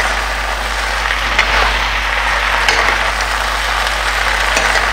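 Chicken pieces with capsicum and onion sizzling in a frying pan over a high gas flame, stirred with a spatula that clicks against the pan three times.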